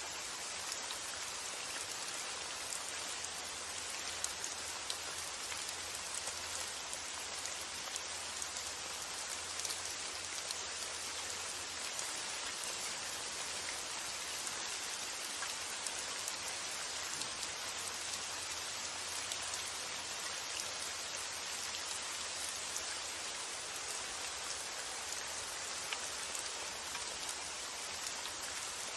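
Steady rain falling, an even hiss of drops with scattered sharper drop ticks. A faint low wind rumble comes and goes underneath, stronger for the first dozen seconds and again briefly later.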